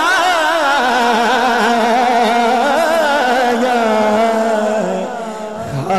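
A man singing a naat into a microphone through a sound system, drawing out long wavering notes with vibrato and no clear words. The voice dips in level briefly near the end.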